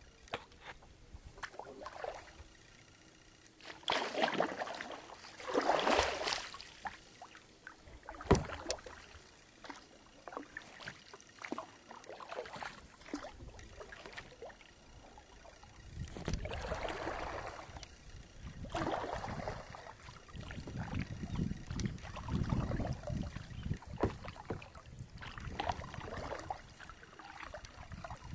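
Kayak paddle strokes swishing and splashing in the lake water, coming in irregular surges, with one sharp knock about eight seconds in.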